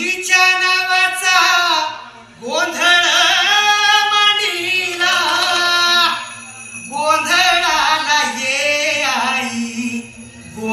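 A song with a solo voice singing long, gliding, ornamented phrases over a low steady backing: three phrases with short breaks between them.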